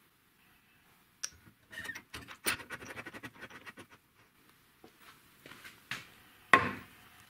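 Steel parts of a hydraulic bottle jack being handled: scattered metallic clicks and a quick rattling run of them. Near the end comes a single loud clunk as the jack is set down on a steel plate.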